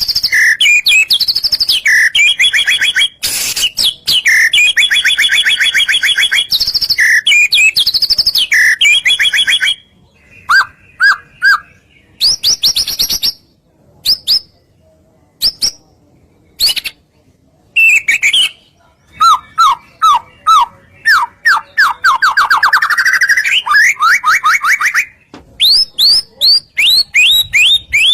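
Songbird song used as a lure track: loud, fast trills and rapidly repeated notes, thinning to scattered single chirps with short pauses partway through, then building back into dense rising trills and quick falling notes.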